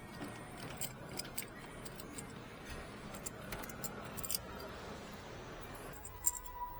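A car key being handled: a scatter of light metallic clicks and jingles. A steady tone starts near the end.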